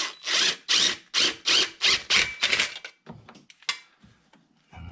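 Handheld cordless power tool spun in about eight quick trigger bursts, driving a bolt on the turbo's V-band clamp, followed by a few lighter clicks.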